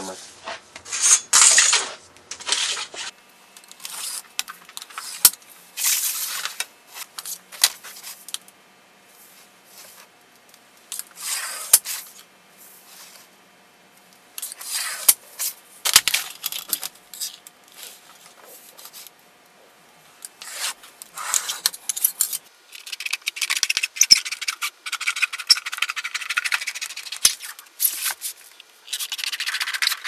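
Scribe and marker scratching layout lines onto galvanized sheet metal along a straightedge, in short scraping strokes with pauses between them. The footage is sped up, so the strokes come quick and high. The scraping grows denser and steadier in the last third.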